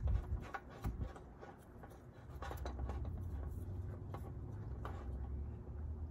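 A few light clicks and taps from a gloved hand handling the drain cap on a cartridge oil filter housing, over a low steady rumble that comes in about two seconds in.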